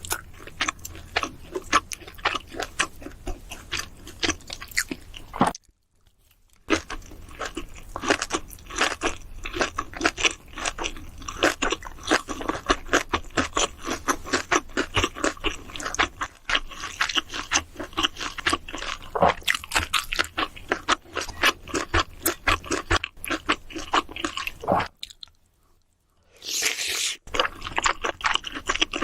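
A person chewing and biting food close to the microphone, with many quick crunching mouth sounds, broken twice by a second or so of silence.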